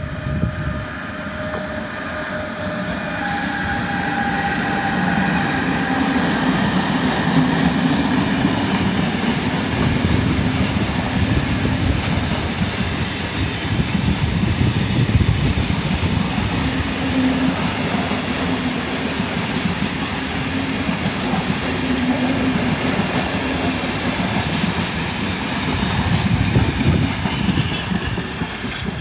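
A Renfe class 253 electric locomotive hauls a long train of empty container flat wagons past at close range. There is a whine in the first few seconds, and then the wagons' wheels keep up a steady rumble and clatter on the rails.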